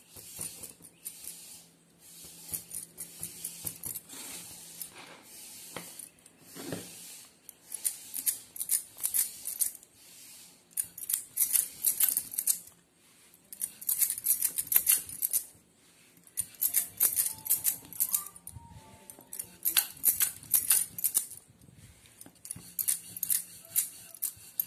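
Wooden rolling pin working a stuffed paratha on a marble rolling board, with glass bangles on the rolling wrist clinking and jingling in quick runs with each set of back-and-forth strokes. It is softer for the first several seconds while the dough ball is pressed flat by hand, and the clinking runs grow louder from about eight seconds in.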